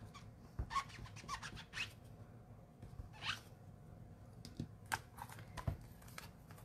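Rubber stamp on a clear acrylic block being rubbed across a chamois stamp-cleaning pad: soft, scratchy rubbing strokes, with a few light clicks in the second half as the block is handled and set down.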